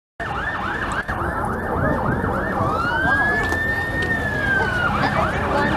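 Fire truck siren switching between a fast yelp of about four sweeps a second and a slow wail that rises and then slowly falls, then back to the yelp near the end, over the low rumble of the truck.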